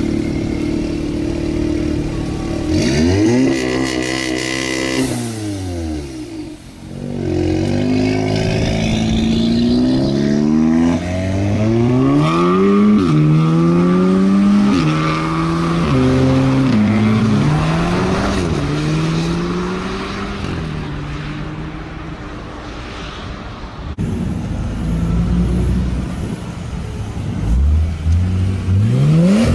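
Car engines revving and accelerating hard, the pitch climbing and dropping again and again as the gears change every second or two.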